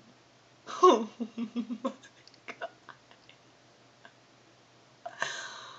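A young woman laughing: a sudden burst then a quick run of ha-ha pulses that trails off, a few faint clicks, and another short breathy laugh near the end.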